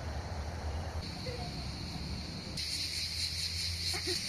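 Insects chirring steadily in a high, pulsing drone, growing louder suddenly about two and a half seconds in.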